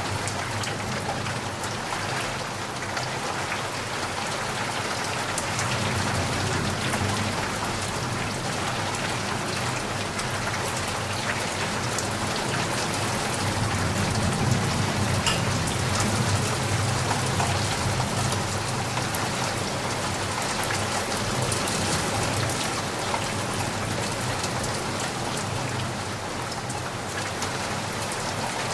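Steady rain falling on a surface, an even hiss of many drops with a soft low rumble that swells and eases a little midway.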